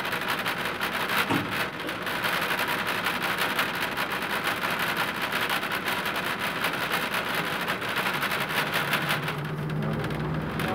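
Steady running noise heard from inside an Ikarus 280 articulated diesel bus crawling in traffic: a loud, even rattling hiss over a low engine hum, with the engine's hum growing plainer near the end.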